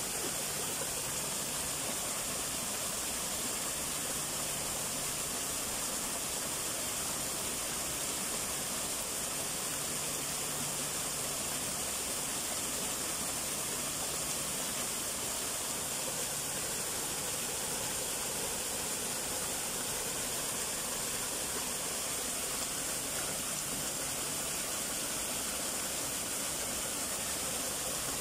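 Small rock garden waterfall splashing steadily into a shallow pool: an even, unbroken rush of falling water.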